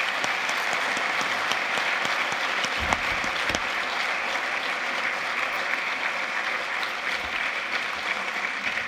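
Lecture-theatre audience applauding steadily, many hands clapping at once.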